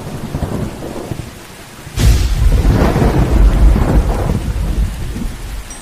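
Thunderstorm sound effect: rain hiss under low rumbling thunder, then a sharp thunderclap about two seconds in that rolls into a long, heavy rumble and fades away.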